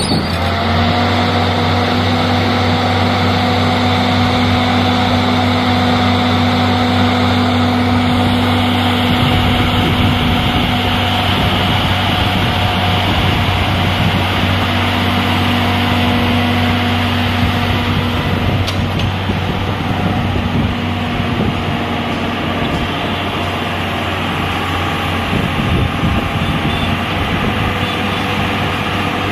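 Tata Hitachi EX200 LC crawler excavator's diesel engine running under load as the machine climbs onto a truck's flatbed. A steady hum with a whine over it that drops away about two-thirds of the way through.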